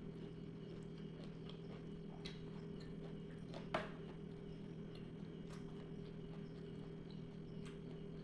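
Someone chewing a mouthful of rice and cassava leaves close to the microphone: scattered soft clicks and smacks of the mouth, with one sharper, louder click a little over three and a half seconds in. A steady electrical hum runs underneath.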